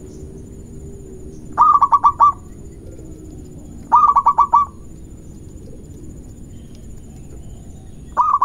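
Zebra dove (perkutut) cooing: two quick phrases of five or six clipped notes each, about two and four seconds in, and the start of a third near the end.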